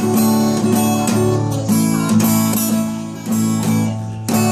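Acoustic guitar strummed in chords, with the chord changing several times.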